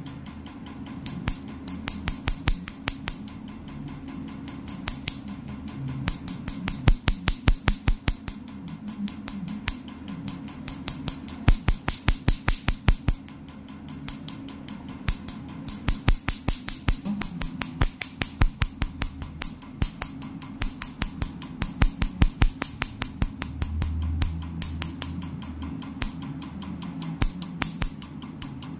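Picosecond (Pico) laser handpiece firing on facial skin during a melasma treatment: rapid sharp snapping clicks, several a second, in runs with short pauses. Music plays quietly underneath.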